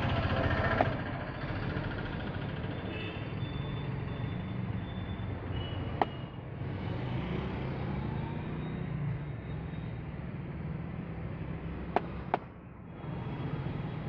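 Steady rumble of road traffic. Four short, sharp cracks from the massage cut through it: one about a second in, one midway, and two in quick succession near the end.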